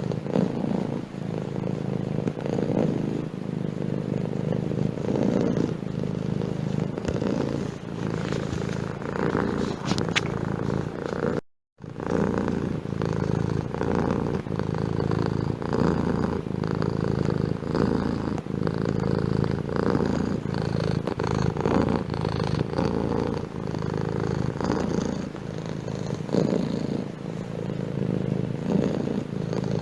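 Domestic cat purring steadily, close up, with an even rhythmic pulse. The sound drops out for a split second about twelve seconds in.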